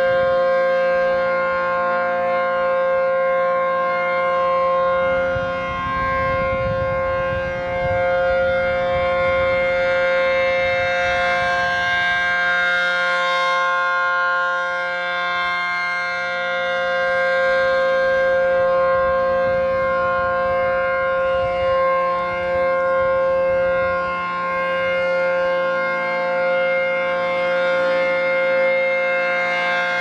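ACA P-15 rotating electromechanical outdoor warning siren sounding a steady tone for its monthly test, the tone swelling and fading as the horn turns.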